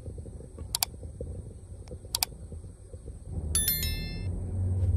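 Metal kitchenware clicking sharply twice, then a brief ringing metallic clink about three and a half seconds in, over a low rumble that grows louder at the same moment.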